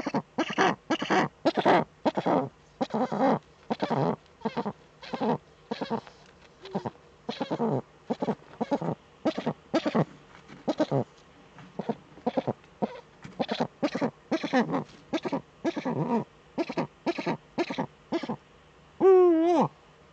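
Eurasian eagle owl calling: a long run of short, clipped calls, two or three a second, with one longer call near the end that wavers and then falls in pitch.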